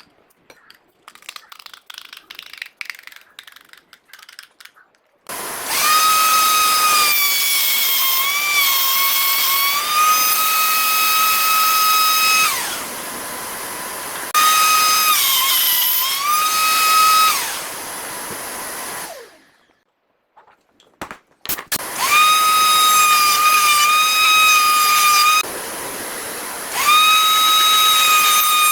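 Router with a dovetail bit running at speed, a high steady whine over a hiss. The pitch sags briefly as the bit cuts into the wood. It starts suddenly after a few seconds of light clicking, drops away twice, stops, and starts again.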